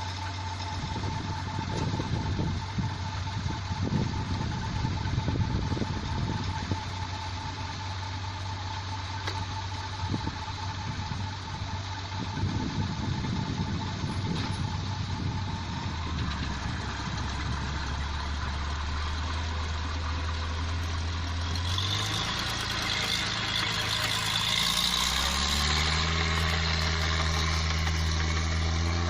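Engine of a rice-padi machine running steadily. Its pitch drops about sixteen seconds in and shifts again around twenty-two seconds, then steps up, with a louder hiss and rattle over the last part.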